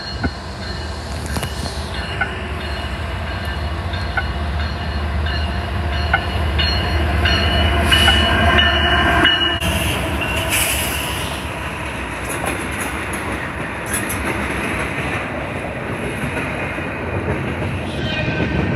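BNSF freight train's diesel locomotives passing close by. A steady engine rumble builds to its loudest as the locomotives go past, about eight to ten seconds in, then eases as the train rolls on.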